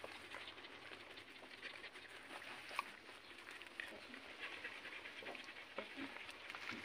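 Dogs panting faintly, with one sharp click near the middle.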